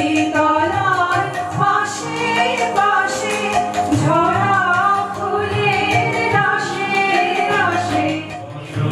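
Live song: women's voices singing a flowing melody over held harmonium chords, with tabla strokes.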